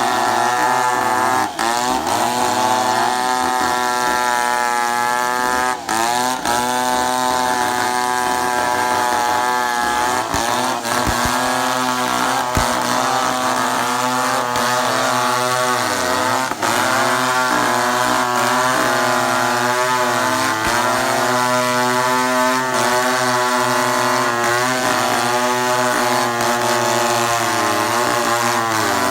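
Two-stroke chainsaw running hard as it cuts wood, its engine pitch sagging and recovering again and again, with a few brief drops in level.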